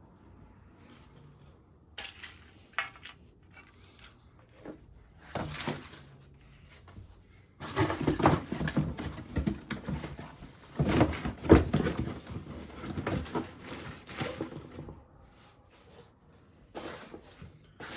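Things being handled: irregular knocks, clicks and rustling, busiest in the middle stretch, with no motor running.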